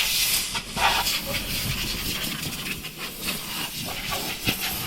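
Vacuum cleaner running with a loud airy hiss that wavers and flickers as it sucks sawdust flakes out of a freshly cut subwoofer box.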